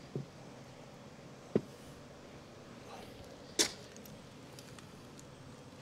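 Two short, sharp clicks about two seconds apart from a pipe wrench working on a seized Honda CB160 engine, over a faint steady background.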